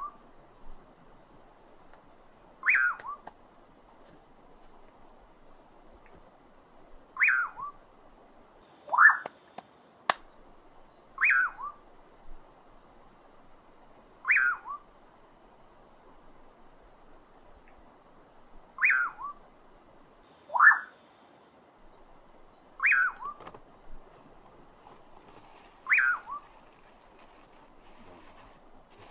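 An animal's short call, falling in pitch, repeated about ten times at irregular gaps of two to four seconds, over a steady high chorus of insects.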